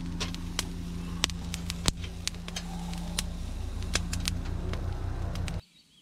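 Meat sizzling on a wire grill grate over a wood fire, with frequent sharp pops and crackles over a steady low hum. It cuts off abruptly shortly before the end.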